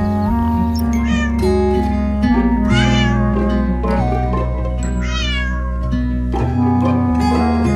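A cat meowing a few times, with drawn-out calls that fall in pitch, over steady background music.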